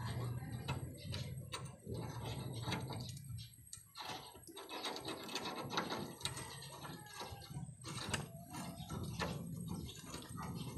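A hand ratchet wrench clicking as it turns the nut on a steering tie rod end, with clinks of a steel socket and bolt being handled. A low hum runs underneath and drops out for a moment around four seconds in.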